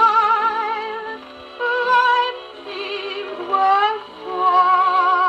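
A 1922 HMV acoustic gramophone playing a 78 rpm shellac record of a 1940s ballad: long held notes with strong vibrato from voice and orchestra near the song's close. The sound has almost no treble.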